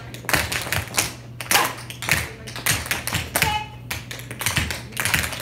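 Dancers' feet tapping and stamping on a hard floor, beating out the batter rhythm of an Irish single jig: quick clusters of sharp strikes.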